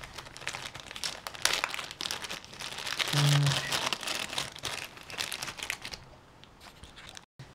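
Thin clear plastic zip-lock bag crinkling and rustling in a stream of quick, irregular crackles as a resin bust is worked out of it. The rustling dies down about six seconds in.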